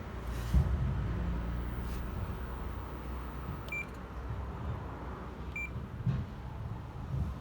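Hitachi Healthy Chef microwave oven giving two short high beeps about two seconds apart, over a low rumble with a few soft bumps.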